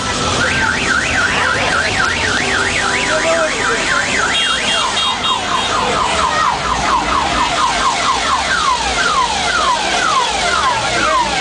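A vehicle's electronic siren cycling through its tones: a fast up-and-down warble for about four seconds, a few short high beeps, then a run of falling sweeps that slow down toward the end.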